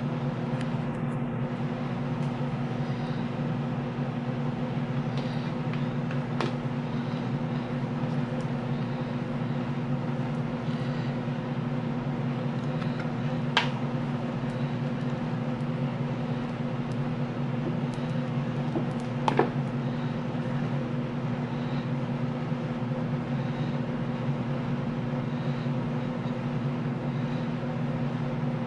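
Steady low machine hum, with a few sharp clicks as cured resin petri dishes are flexed out of a silicone mold; the loudest click comes about two-thirds of the way through.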